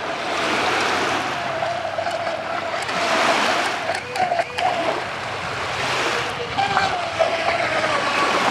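Electric RC speedboat's brushless motor whining out on the water, a thin steady tone that wavers with throttle and rises briefly about seven seconds in, over wind and lapping waves.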